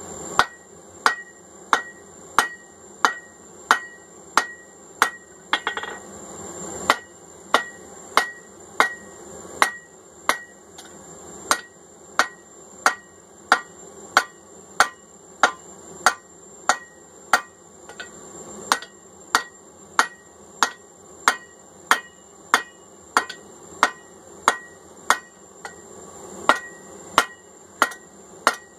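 Hammer blows on hot steel over an anvil in a steady rhythm, a little under two a second, each with a short metallic ring, with a brief pause about six seconds in. The blows are working the drifted hammer eye back down to widen it out.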